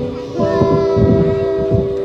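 Children's choir singing a Christmas song, holding a long note together after a brief dip at the start.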